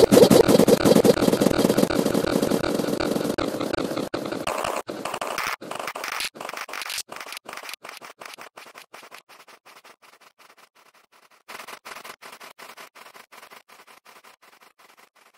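A dense jumble of many overlapping sound clips chopped by rapid stuttering cuts, fading steadily from loud to faint over about ten seconds, with a brief faint return near the end.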